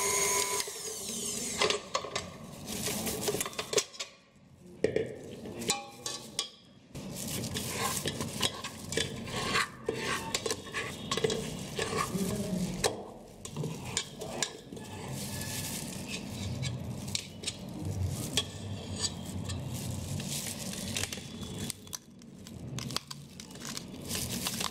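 A stand mixer's motor stops about half a second in. Then a metal ice cream scoop scrapes and clinks against the stainless steel mixer bowl as freshly frozen ice cream is scooped out, with irregular knocks and scraping throughout.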